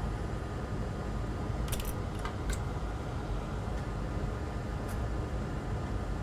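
Steady low rumble of workshop background noise, with a few light metallic clicks and taps of small tools: a cluster about two seconds in and one more near the end.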